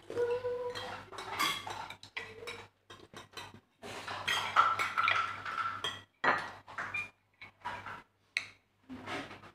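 Spoons and forks clinking and scraping against ceramic plates and bowls while people eat, in irregular clinks throughout, the loudest about halfway through.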